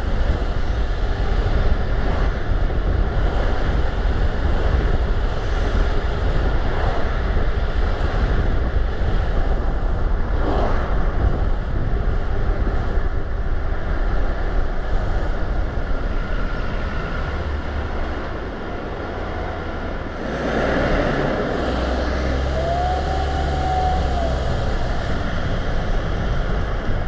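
Car driving on a road: steady tyre and wind rumble that eases a little about 18 seconds in and builds again after 20 seconds. A brief tone rises and falls about 23 seconds in.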